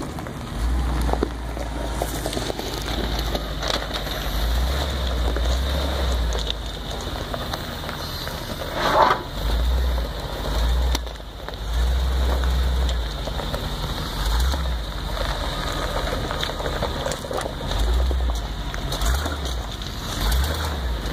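Lifted Chevrolet pickup truck's engine running at low speed as it crawls over gravel mounds, its big off-road tyres crunching and crackling on loose stones, with a louder crunch about nine seconds in. Gusts of wind buffet the microphone on and off.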